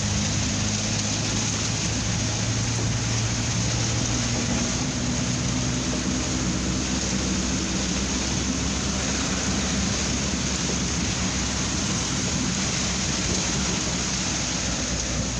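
Heavy rain pelting a car's roof and windscreen, heard from inside the moving car as a steady dense hiss, with a low hum from the engine and road underneath.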